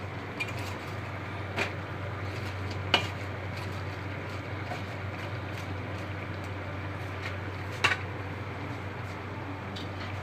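A spatula stirring chopped vegetables in a stainless steel pot, with a few sharp knocks against the pot, the loudest about three seconds and eight seconds in, over a steady hiss and low hum.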